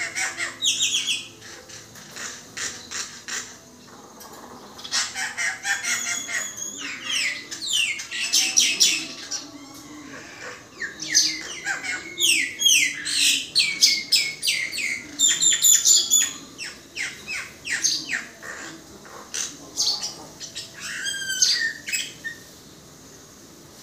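Common myna singing: bouts of rapid chattering, clicking and whistled notes, many sweeping down in pitch, with short pauses between the bouts.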